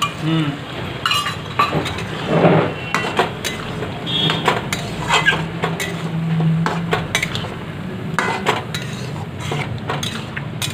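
Long flat metal spatula stirring vegetable curry in an aluminium wok, scraping the pan and knocking against its sides in repeated clinks, over a low steady hum.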